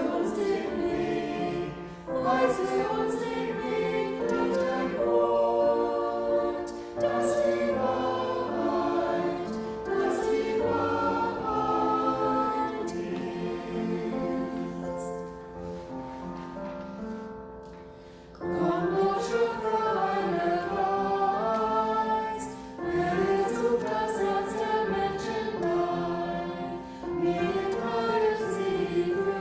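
Choir singing a hymn in sung phrases. It grows quieter about halfway through and comes back in full a few seconds later.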